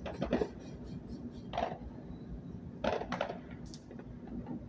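Fireworks going off: a few scattered sharp pops and crackles, with a single pop about a second and a half in and a short cluster of pops near three seconds.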